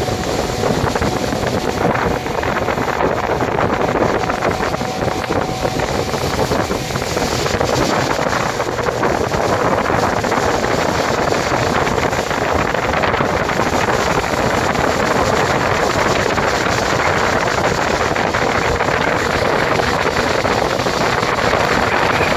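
Speedboat running at speed: a steady engine drone mixed with rushing water and wind buffeting the microphone.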